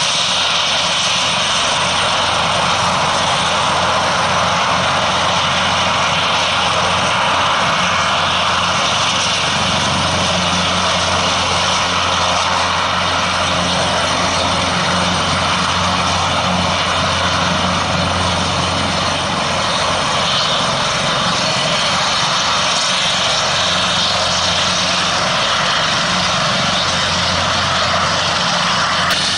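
Airbus H225M Super Cougar helicopter running with its main rotor turning: its twin turboshaft engines give a steady whine over a constant rush of rotor and engine noise.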